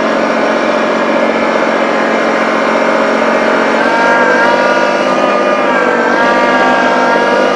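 Small tractor's engine running hard while it tries to pull a leaning tree back. About four seconds in, its pitch rises and wavers as it takes on more load.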